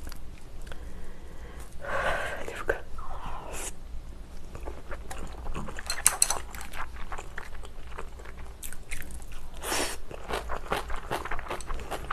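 Close-miked chewing of kimchi with rice: moist crunches and mouth clicks in quick, irregular clusters, thickest in the last few seconds.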